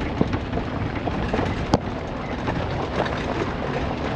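Suzuki Jimny driving over a rough off-road track, heard from inside the cabin: steady engine and drivetrain noise with a constant clatter of small rattles and knocks from the body bouncing over the ground. Two sharper knocks stand out, the louder one nearly two seconds in.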